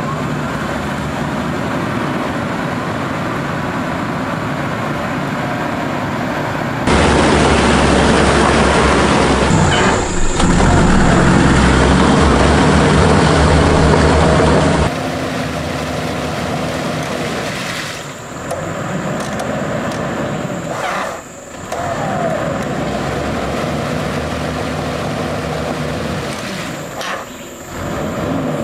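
An off-road 4x4's engine running and revving while the vehicle is stuck in deep mud, heard in several abruptly cut clips. A louder, deeper stretch starts about a quarter of the way in and ends near the middle.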